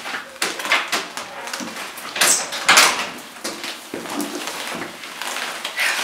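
Footsteps and shuffling on wooden stairs, with clothing and handbag rustling, as two people sit down on the steps; a string of irregular knocks and rustles.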